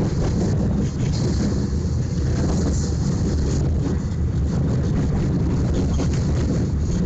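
Interior noise of a moving tram: a steady heavy low rumble from the car running on the rails, with a high hiss and faint irregular clicks and rattles.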